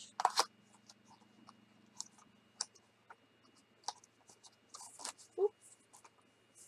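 A small cardboard box of essential oil bottles being opened and handled: a scraping rustle just after the start, then scattered small clicks and taps of cardboard and bottles. A short pitched sound comes about five seconds in.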